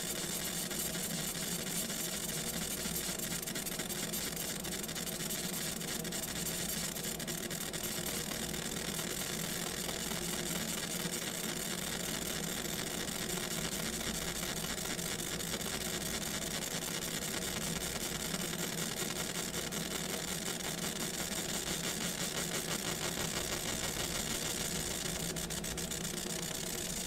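Laser engraving machine running steadily as it engraves a logo into a silver coin: an even whirring noise with several steady tones under it, no change in pace.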